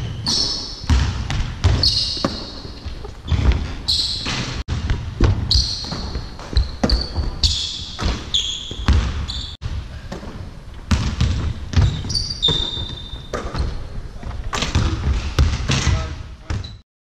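Basketballs bouncing and thudding on a hardwood gym floor, with short high squeaks of sneakers on the boards, echoing in a large sports hall. The sound breaks off abruptly twice and stops suddenly near the end.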